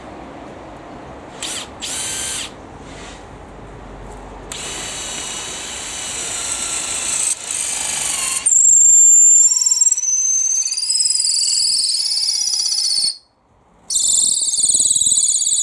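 Cordless drill boring with a long auger bit, with two short trigger bursts and then steady running that builds in load. About eight seconds in, a loud high-pitched squealing whine joins it. It stops for a moment near the end and then carries on.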